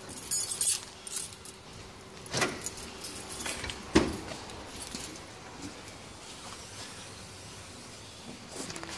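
Keys jangling, then the sharp click and clunk of a Citroën Berlingo van's rear door latch being opened about four seconds in.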